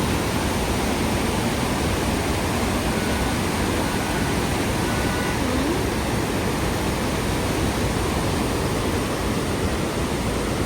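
Waterfall's steady rush of falling water, an even unbroken roar with a deep rumble beneath.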